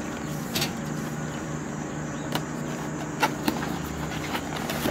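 A long cardboard box being pried and pulled open by hand: scattered scrapes and taps of the cardboard, a handful over a few seconds, over a steady low mechanical hum.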